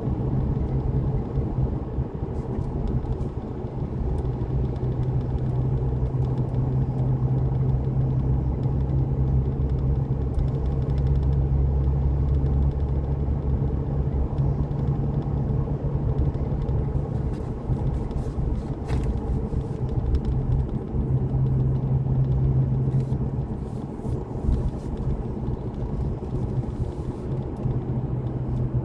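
Vehicle driving at a steady pace, with a continuous low engine and road rumble. A few faint ticks come through in the second half.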